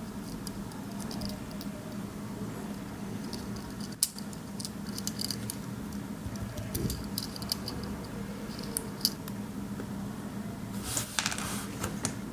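Small clicks, ticks and scrapes of a Swiss Army knife being handled and worked on, with one sharp click about four seconds in and a brief scraping rustle near the end, over a steady low hum.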